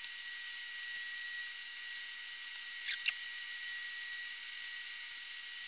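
Steady hiss with faint steady high tones. About three seconds in, two quick light clicks as fluxed copper pipe and fittings knock together while being fitted.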